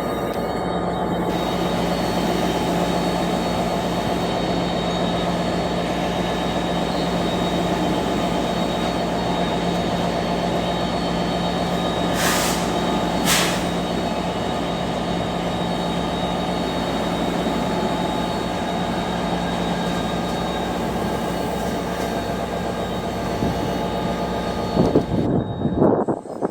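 NJ Transit commuter train running, a steady rumble with a constant low hum. Two brief hisses come about halfway through, and there is louder, uneven clatter near the end.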